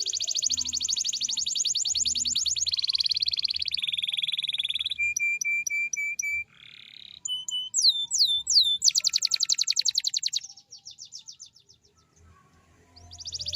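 Domestic canary singing a long song. It opens with fast, rapidly repeated rolls, moves through a run of short repeated notes and a few swooping whistles, and stops about ten and a half seconds in. After a short pause the next song begins with a roll near the end.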